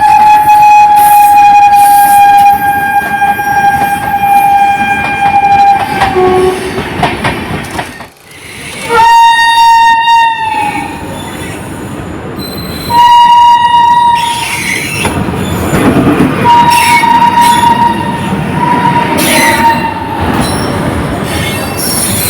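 Indian Railways locomotive horn sounding in four blasts. A long blast of about six seconds sags in pitch as it ends, followed by two short blasts and a longer one, over the rumble and rattle of a moving train.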